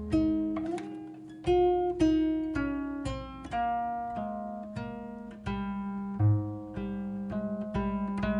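Background music: an acoustic guitar plucking a slow, gentle melody over held bass notes.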